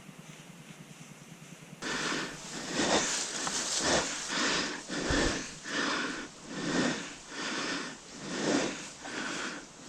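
A person breathing hard close to the microphone, starting about two seconds in and going in and out roughly once a second.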